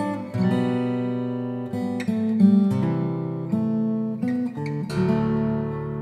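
Acoustic guitar music: plucked notes and chords that ring out and fade, with a new one about every second.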